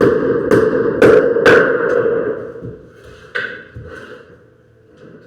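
Hammer blows in carpentry work, about two a second, with a ringing tone under them. After a couple of seconds the blows stop and the sound dies away with a few lighter knocks.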